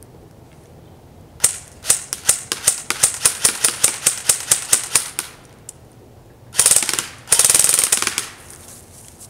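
Classic Army M4 CQB airsoft electric gun (AEG) firing, stock and powered by an 11.1 V LiPo: a string of rapid single shots at about four to five a second, then two short full-auto bursts near the end, the second one longer.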